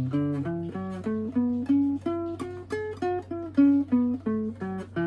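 Guitar played note by note: a picked single-note melody of about three to four notes a second, each note ringing briefly before the next.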